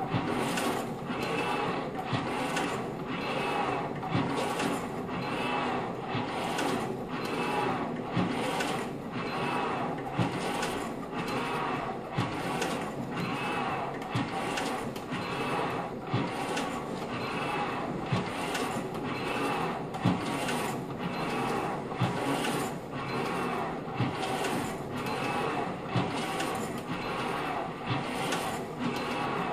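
Kayak ergometer worked hard at a fast stroke rate: its resistance flywheel whirs without pause, surging with each paddle pull in a steady rhythm of about two strokes a second.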